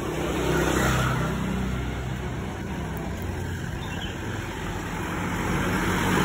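Street traffic: a motor scooter passing close, its engine swelling and fading about a second in, then another vehicle's engine swelling near the end.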